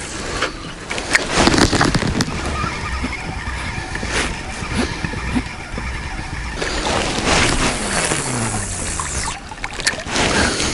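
A boat's motor running and then slowing, its pitch falling in the later part, with water sloshing and a few knocks.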